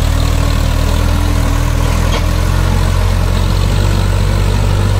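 Diesel engine of a backhoe loader or tractor running steadily at a low, even speed.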